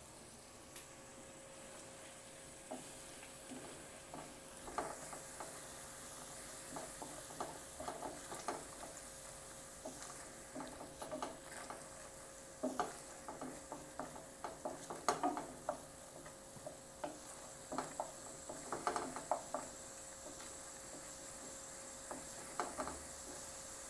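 Wooden spatula stirring and scraping a thick spice paste around a non-stick frying pan, in irregular runs of short strokes, over a faint steady sizzle of the masala frying in oil with its ground spices just added.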